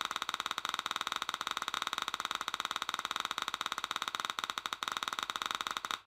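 3Shape TRIOS intraoral scanning software's scanning sound: a steady, rapidly pulsing buzz of about ten pulses a second that plays while the scanner is capturing data, cutting off abruptly near the end when scanning stops.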